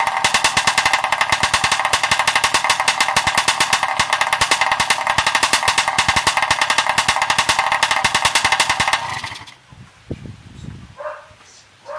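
Motorcycle engine idling through a test-fitted jog-pipe exhaust, a loud, rapid, even popping beat. It is shut off about nine seconds in.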